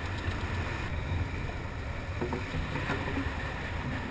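Steady low wind rumble on the microphone, mixed with sea and water noise.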